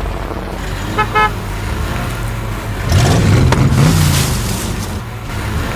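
Cartoon vehicle sound effects: a car horn toots twice in quick succession about a second in, over a steady engine rumble that gets louder about three seconds in.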